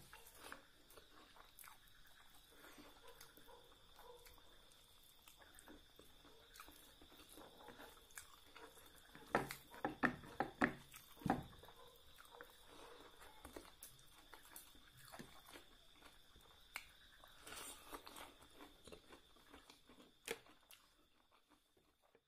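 A person chewing food close to the microphone, with small wet clicks and soft crunches. There is a burst of louder chewing about nine to eleven seconds in.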